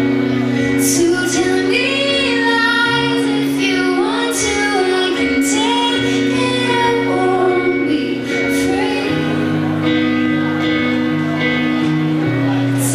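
Live rock band playing a slow song, a woman singing a gliding melody over held low notes, with sharp high hits from time to time.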